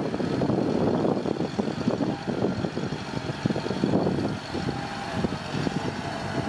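Kubota tractor's diesel engine running under load as its front blade pushes and levels loose soil: a dense, steady rumble that eases slightly about halfway through as the tractor moves off.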